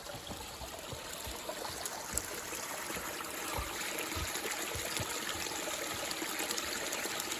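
Steady rush of running water, growing slightly louder, with scattered soft low thumps.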